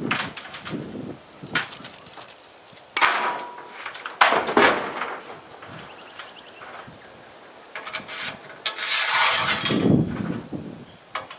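Hands-on work noise: irregular knocks and clicks, with a longer scraping rub about nine seconds in.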